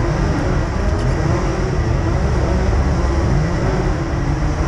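Rotax Max Junior 125cc two-stroke kart engines idling, the pitch drifting up and down as the revs waver.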